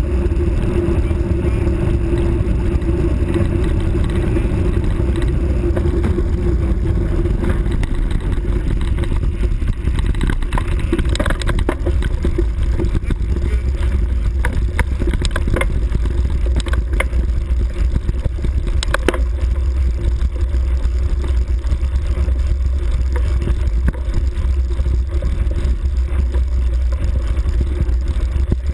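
Steady wind buffeting on the microphone of a camera moving fast along a forest track, with rough rumbling noise. A scattering of sharp clicks and rattles comes between about ten and twenty seconds in.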